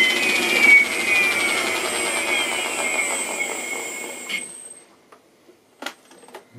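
Sensorless brushless electric motor turning the buggy's rear wheels through a pulley drive, winding down from a high-speed whine: the pitch falls and the sound fades out over about four seconds. A single light click follows near the end.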